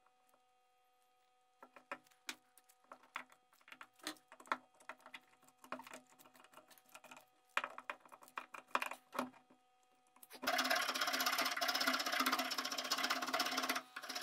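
Trigger bar clamps being ratcheted tight around a cleaver's wooden handle scales, a run of irregular clicks. About ten seconds in, a hand file starts scraping across the wooden handle, loud and steady.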